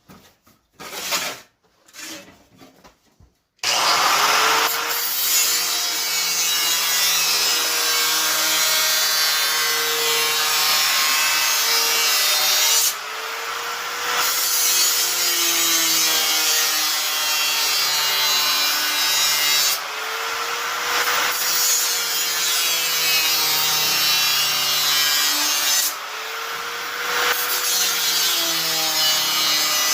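Power tool cutting out a sheet-metal patch panel, starting about four seconds in after a few faint handling scrapes. It runs continuously with its motor pitch wavering as it works, easing off briefly three times.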